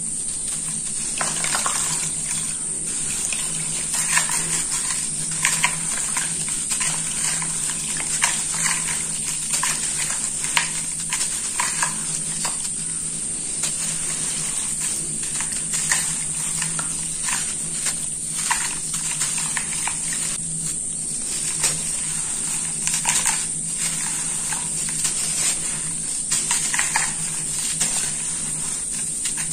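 Dry sand-cement lump being crumbled by hand into a basin of water: gritty crunching, with crumbs and powder pattering and splashing into the water in short, irregular bursts.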